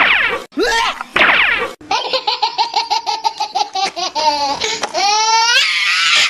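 High-pitched laughter, a fast run of 'ha-ha-ha' laughs from about two seconds in, ending in a rising squeal. It is preceded by three repeated swooping sounds.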